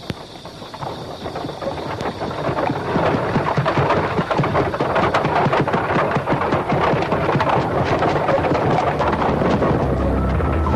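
Heavy rain pouring down. It swells over the first three seconds into a steady, dense downpour.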